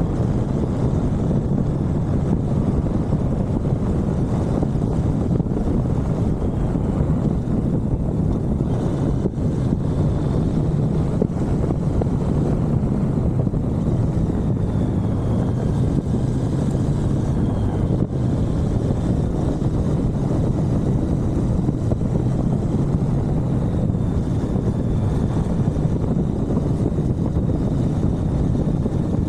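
Suzuki V-Strom 1050XT's V-twin engine running steadily under way, heard onboard, with wind rushing over the microphone.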